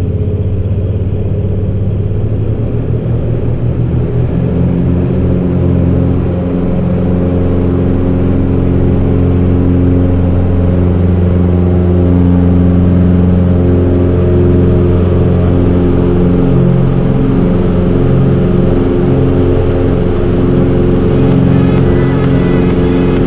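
Cessna 205's piston engine and propeller at takeoff power, heard from inside the cockpit during the takeoff roll; steady and loud, growing a little louder over the first few seconds.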